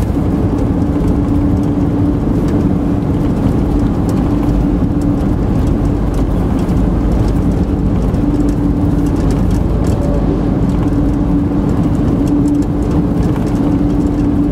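Steady road noise inside a moving car: low tyre and road rumble with a steady engine drone.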